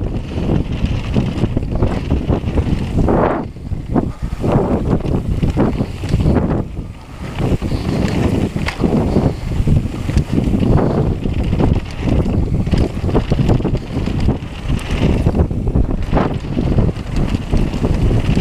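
Wind buffeting a mountain biker's camera microphone at speed, with the rumble and rattle of the bike riding a dirt trail beneath it; the noise surges unevenly throughout.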